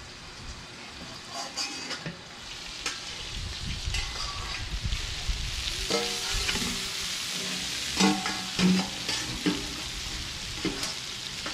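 Bacon-wrapped meatloaf sizzling in grease on a flat-top steel griddle. The sizzle grows louder from about a third of the way in, as the stainless steel bowl covering it is lifted off. Scattered metal clanks of spatula and tongs against the bowl and griddle come through, the loudest pair about two-thirds of the way in.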